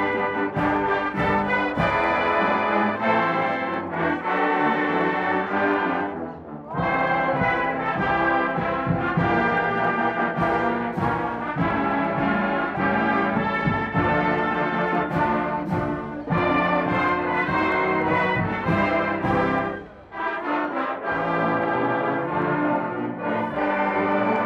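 A full marching band, brass and woodwinds, playing a piece together, with a brief break between phrases about six seconds in and again about twenty seconds in.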